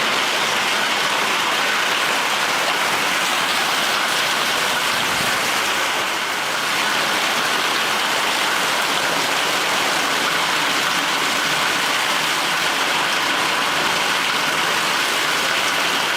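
Steady, loud rushing water noise like a heavy downpour, even throughout with a slight dip about six seconds in.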